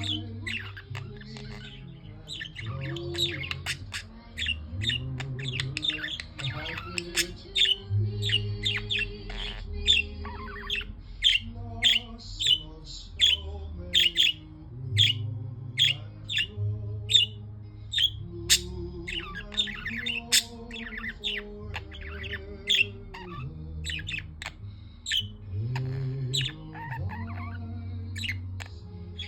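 Budgerigars chirping and squawking in quick, sharp calls throughout, over a slow melody of held notes.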